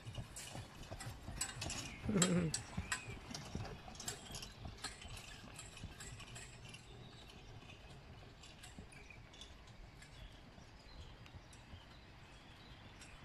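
Horse-drawn carriage passing close by: hooves clip-clopping and the carriage's wheels and metal fittings rattling, with a brief louder sound falling in pitch about two seconds in. The clicking thins out and fades as the carriage moves away.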